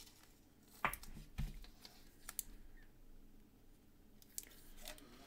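Trading cards being handled, giving a few faint, separate clicks and taps as the cards are sorted and flipped.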